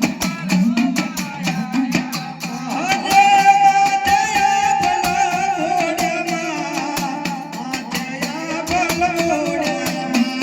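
Live Gujarati dakla devotional music: quick, even drum strokes under a singer who holds a long, wavering sung line through the middle.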